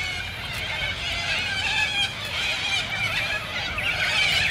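Birds calling and warbling, several wavering high calls overlapping one another.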